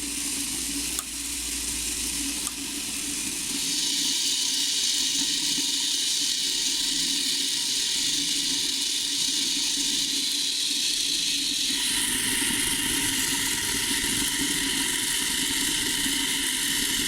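Firework core stars tumbling in a turning star-rolling bucket, with a steady hiss from about four seconds in as a big spray bottle mists them with a water and rubbing-alcohol mix to dampen them.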